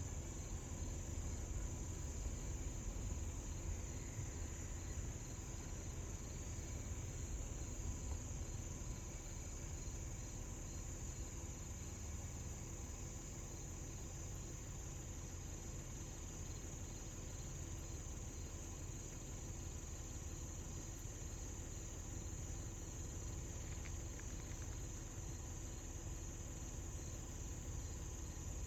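Steady high-pitched chorus of insects, faint and unbroken, over a constant low rumble.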